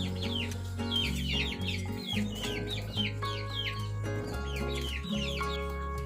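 Background music with a steady bass line, overlaid by many short, high, falling chirps repeating several times a second, from chickens or chicks.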